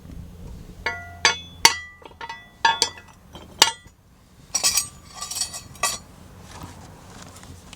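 An iron frying pan knocking against a homemade metal wood stove as it is set over the fire: about seven sharp, ringing metallic clinks, then a short rattling scrape about halfway through.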